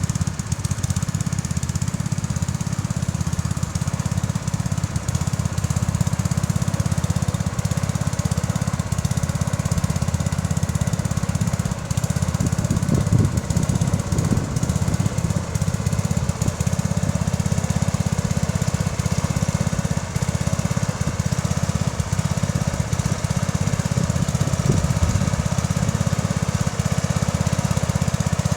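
Bolens 1050 garden tractor engine running steadily under load while pulling a plough, a low rumble with a couple of brief louder surges partway through.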